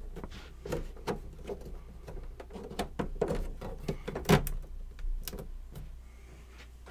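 Panels of a hobby airbrush spray booth being lined up and fitted together by hand: a string of light clicks and knocks, the loudest about four seconds in.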